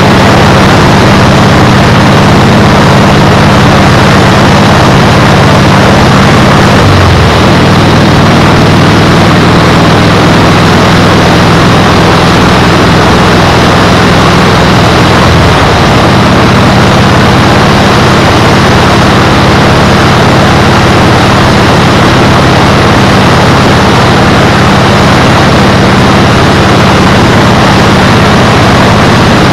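Motorcycle engine running at a steady cruise under loud wind noise on a GoPro microphone. The engine note changes about seven seconds in and again about fifteen seconds in.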